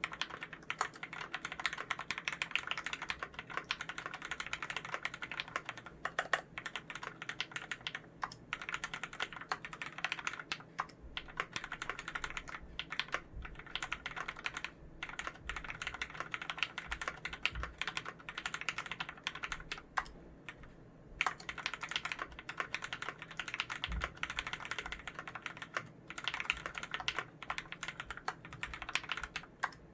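Typing on a Varmilo VA108 mechanical keyboard with lubed Cherry MX Red linear switches, steel plate, plastic case and GMK keycaps: a fast, continuous stream of key strokes with a couple of brief pauses.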